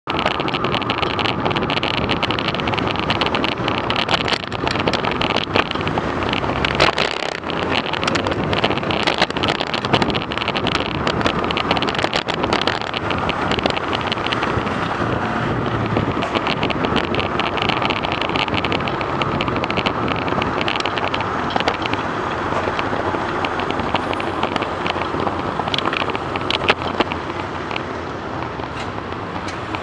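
Wind noise on a bike-mounted camera's microphone while cycling in a bike lane, mixed with the steady noise of tyres and nearby car traffic. Frequent sharp clicks and rattles run through it.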